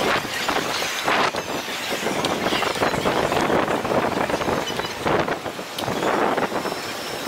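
Outdoor city street ambience: steady noise of passing vehicle traffic with scattered short clicks and knocks.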